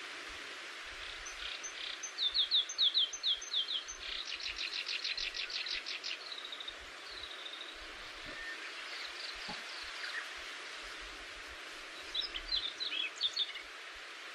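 Songbird singing in phrases. It gives a run of short falling notes, then a rapid trill about two seconds long, then a few separate slurred whistles, and another jumbled phrase near the end. A steady outdoor hiss runs underneath.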